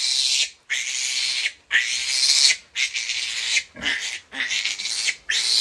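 Baby piglet squealing while held up by its hind legs: a run of about seven high-pitched squeals, each under a second long, with short breaks between.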